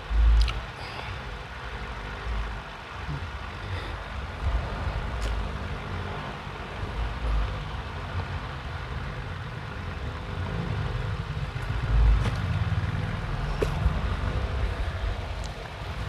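Clothes being handled: fabric rustling as track pants are pulled from a pile and held up, with a few low thumps, over a steady background rumble.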